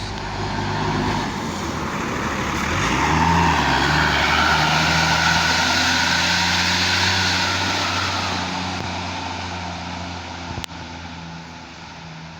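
Tour bus diesel engine passing through a tight bend. The engine note rises about two and a half seconds in, stays loud for several seconds as the bus goes by, then slowly fades away.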